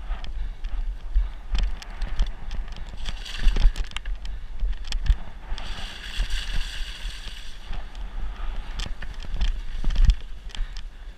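Mountain bike descending fast over a rough trail: wind buffets the microphone with a steady low rumble, and the bike rattles over bumps in frequent clicks and knocks. About halfway through, a rushing hiss lasts about two seconds as the tyres run through mud.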